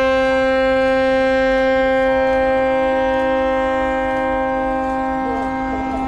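A ship's horn blowing one long, steady blast during a ship's side launch.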